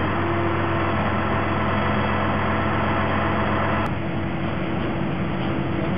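A large engine running steadily at a constant speed; the sound changes abruptly about four seconds in.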